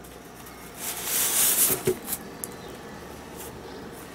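Polystyrene foam packing tray and cardboard being lifted out of a box: a rubbing, rustling scrape about a second in that lasts a second or so, with a few sharp clicks, then fades.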